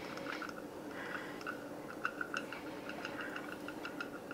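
Shredded cheddar shaken from a plastic measuring cup onto a casserole: faint, irregular soft ticks and patter as the shreds land, over a faint steady hum.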